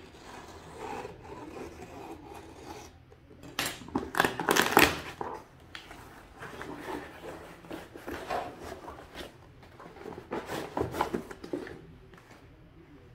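Cardboard shipping mailer being torn open and handled by hand: irregular rustling, scraping and ripping of paper and cardboard, loudest in a burst of tearing about four seconds in and again near eleven seconds.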